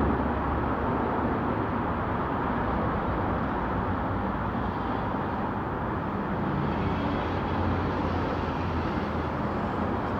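Steady low rumble of a vehicle engine with an even background noise, unchanging throughout.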